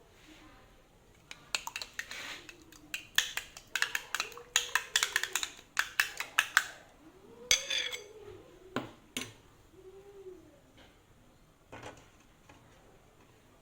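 Metal utensil clicking rapidly against a bowl in a quick run of taps, as when beating eggs, then a few scattered clinks later.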